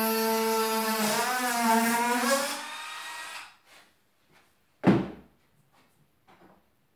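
Electric drill running while boring into bone, its pitch dipping under load and recovering, then winding down and stopping about three seconds in. About five seconds in comes a single sharp knock, followed by a few faint taps.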